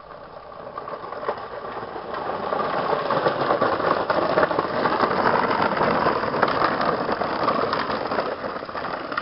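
A child's battery-powered toy quad bike driving on a dirt path: its small electric motor and gears whirring, with the plastic wheels crunching and rattling over the ground. It grows louder as it comes close over the first few seconds, then eases slightly near the end as it moves on.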